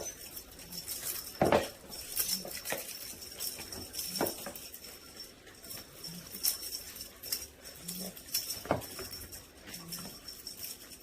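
Irregular soft taps, thumps and light clinks of a cat playing with a fishing-rod wand toy, spaced a second or two apart.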